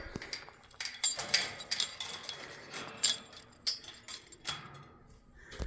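Scattered light metallic clinks and rattles with rustling, the sharpest clinks about a second in and about three seconds in, fading near the end.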